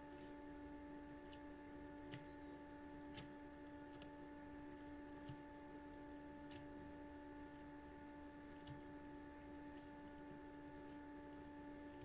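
LG WD-14370FD front-loading washing machine washing, with laundry tumbling in the drum: a faint, steady hum with faint irregular clicks every second or so.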